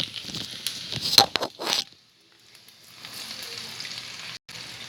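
Chopped garlic sizzling in hot mustard oil in a pan. A few sharp clicks sound in the first two seconds, the sizzle drops away briefly a little after two seconds, then resumes steady and even.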